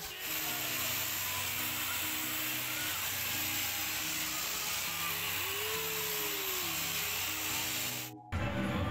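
Steady mechanical whirring hiss, with a faint tune of music playing under it. The sound cuts out abruptly near the end, then louder music comes in.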